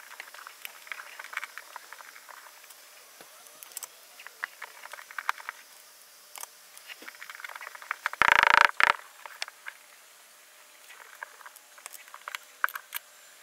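Hands working on a car door panel lined with butyl damping mat: a scatter of small clicks, crackles and rustles as wiring and panel parts are handled, with one louder, harsher noise about half a second long around two-thirds of the way through.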